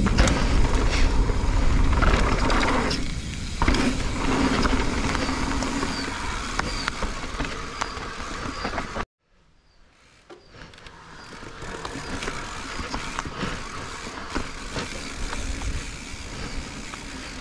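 Mountain bike rolling fast down a dirt trail: wind buffeting the rider-worn camera's microphone over tyre rumble on gravel and packed dirt, with scattered clicks and rattles from the bike. A little past halfway the sound cuts out suddenly for about a second, then fades back in, quieter.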